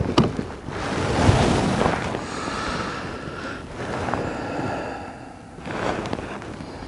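Wind rushing across the microphone over open water, with a couple of sharp clicks just after the start.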